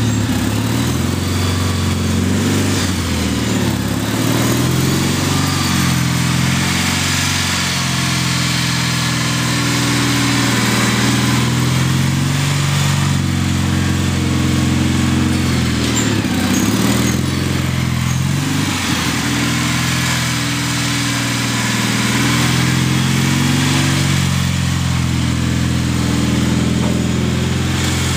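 Gravely garden tractor's engine running at a steady speed while it pushes snow with a front plow blade, its tone swelling and shifting as the tractor moves back and forth.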